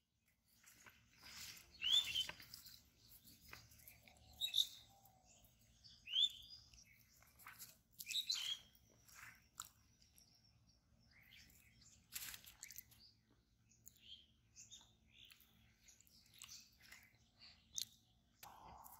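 Scattered short bird chirps mixed with brushing, crunching footsteps through grass and leafy plants.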